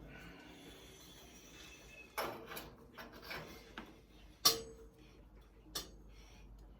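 A few scattered metallic clanks and knocks from tools and parts being handled during a vehicle teardown, the loudest about halfway through with a brief ring.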